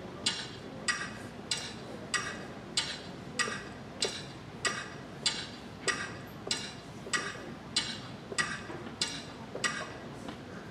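Clock ticking steadily, about sixteen even ticks a little over half a second apart, stopping shortly before the end.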